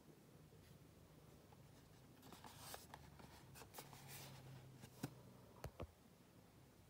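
Faint rustling and scraping of a cardboard product carton being turned over in the hands, with three sharp taps about five seconds in.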